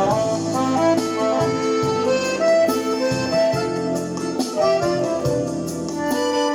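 Accordion playing a melody in held and moving notes over a MIDI backing track with bass and a steady rhythm.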